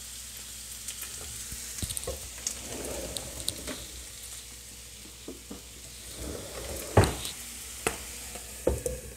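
Potato sticks with mushrooms, onion and carrot frying in a pan, sizzling steadily with scattered small pops and crackles. A sharp crack about seven seconds in is the loudest sound, with a few more near the end.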